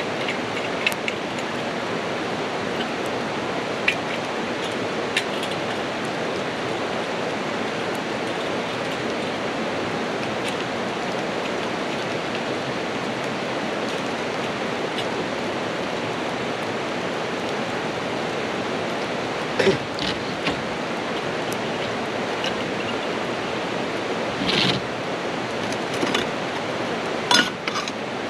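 A steady, even rushing noise, with a few sharp clinks and knocks in the last several seconds.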